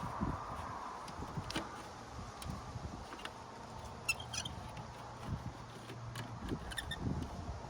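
Hands working plastic interior door-panel trim: scattered light clicks and taps, with a small cluster of clicks about four seconds in.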